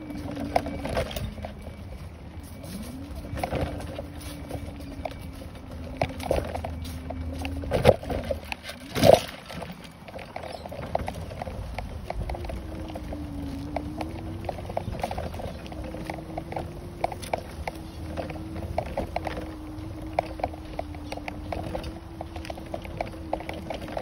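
A motor hum with a slightly wavering pitch. It breaks off for a few seconds after two louder knocks about eight and nine seconds in, then resumes, with scattered light clicks throughout.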